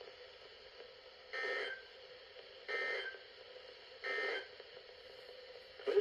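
NOAA Weather Radio SAME end-of-message data bursts: three short, harsh two-tone warbling blips about 1.4 seconds apart, played through a weather radio's speaker. They mark the end of the flood warning broadcast.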